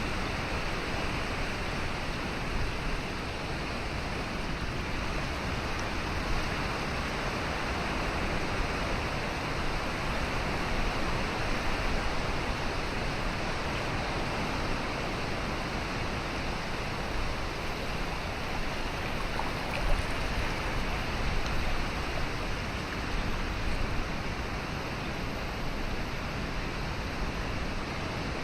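Steady rushing of flowing water, an even noise with no rhythm, with one brief click about twenty seconds in.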